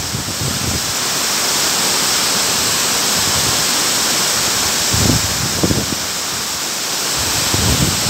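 Tall waterfall's steady rush of water pouring down and splashing onto a rock face. Wind buffets the microphone with brief low rumbles about five seconds in and again near the end.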